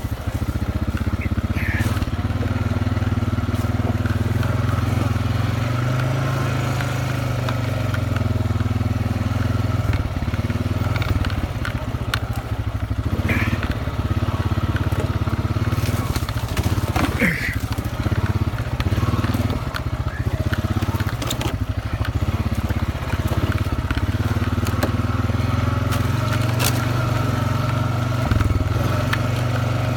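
Honda ATV's engine running steadily at low revs as it crawls over rock and brush, with scattered crunches and clicks of the tyres and rack on stone and branches.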